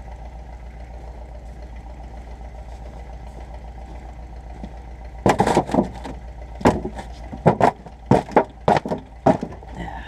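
An engine idles steadily underneath. About five seconds in, a run of sharp, irregular knocks and clanks starts, a couple each second, louder than the engine.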